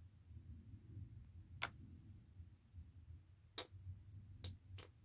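A few faint, sharp clicks, about four at uneven intervals, the loudest two near a second and a half in and near the end, over a low steady hum.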